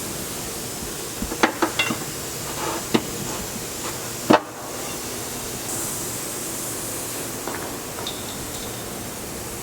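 Sharp metallic clinks and knocks of hand tools and metal parts while a transmission is being unbolted under a car: a quick cluster about a second in, another knock near three seconds, and the loudest just after four seconds, over a steady hiss.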